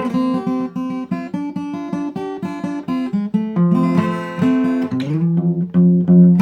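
Acoustic blues guitar playing an instrumental passage between the sung lines of a song: a quick run of picked notes, with one note sliding up about five seconds in.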